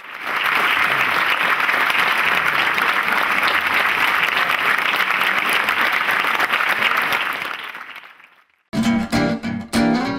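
Audience applauding steadily, fading out about eight seconds in. Plucked acoustic guitar music starts just after.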